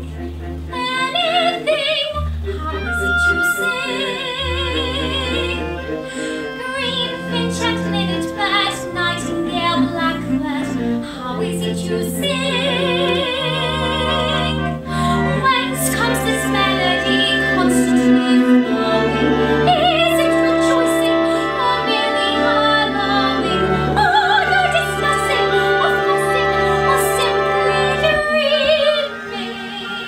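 A soprano singing an operatic musical-theatre ballad with a wide vibrato over instrumental accompaniment of sustained low notes. The music drops in loudness about a second before the end.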